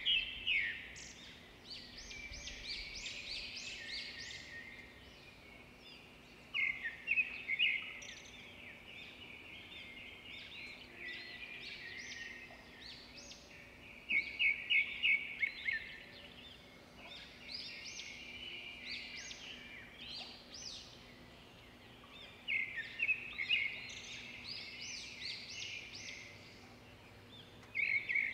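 A songbird singing: phrases of rapid, high chirping notes, each a couple of seconds long, repeating every several seconds over a faint steady background hiss.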